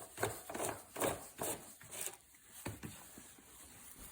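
Irregular knocks and clatter of a couch leg being fitted and screwed onto the frame, a handful of sharp taps in the first two seconds and quieter after.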